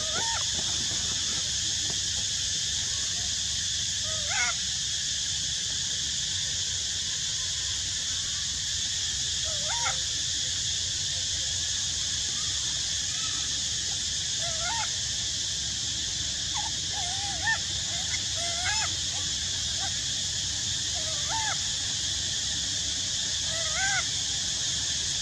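Young long-tailed macaque giving short, whimpering coo calls, each rising and then falling in pitch, about nine of them at irregular intervals, heard over a steady high hiss.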